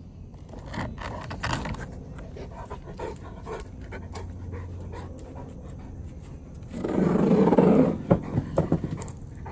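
A small dog panting and moving about. There is a louder, rushing burst about seven seconds in, followed by a few sharp clicks.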